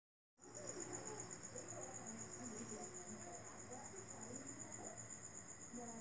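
Crickets trilling in a steady, continuous high-pitched chorus that begins a fraction of a second in.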